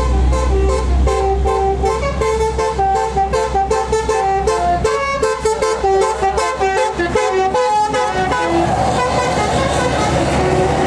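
Multi-tone basuri telolet horn on a tour bus, playing a quick melody of many short stepped notes over the low rumble of the bus engine. The tune stops about eight and a half seconds in, leaving a steady rushing noise.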